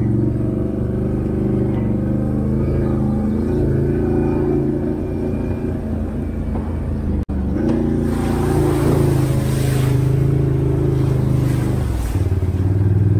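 Can-Am Outlander 650 ATV's V-twin engine running steadily through a loud Straightline Performance aftermarket exhaust. The sound breaks off for an instant about seven seconds in, and a hiss rises over the engine for a couple of seconds just after.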